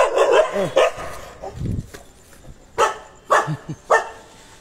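An animal yelping in rising and falling cries, then giving three short, sharp barks a little over halfway through.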